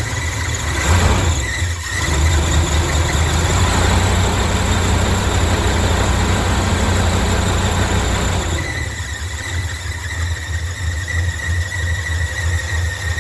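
1977 Chevy Silverado pickup engine running, louder for the first eight seconds or so and then settling to a lower idle, with a steady high-pitched squeal over it.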